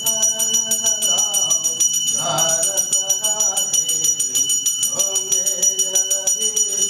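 Brass temple hand bell rung rapidly and continuously during an aarti, a steady high ringing pulsed by quick even strokes, over voices singing.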